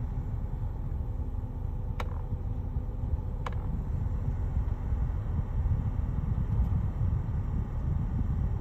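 Sharp clicks from the air-conditioning of a BMW X5 F15, two of them about a second and a half apart and a fainter one a few seconds later. Under them runs the car's steady low rumble.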